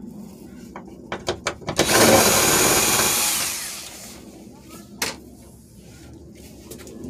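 A few quick clicks, then a cordless power driver runs for about two seconds and fades, taking out a sunroof-frame mounting fastener; a single sharp click follows a few seconds later.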